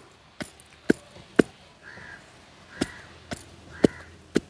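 Wooden pestle pounding dates in a tall wooden mortar, a thud about every half second.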